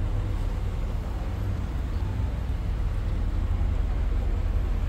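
Steady low rumble of street noise, like vehicles idling and traffic, with no distinct events.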